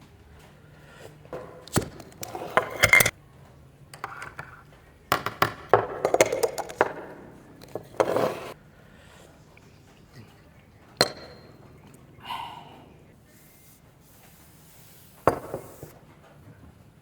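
Hands handling a camera's packaging and parts during unboxing: a series of sharp clicks and knocks mixed with short spells of rustling.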